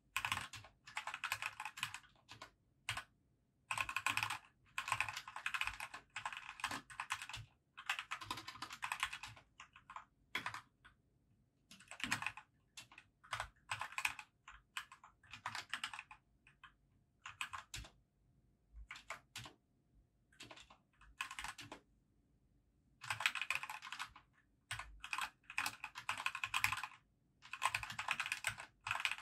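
Fast typing on a compact computer keyboard: runs of rapid keystrokes a second or two long, broken by short pauses and a few single key presses.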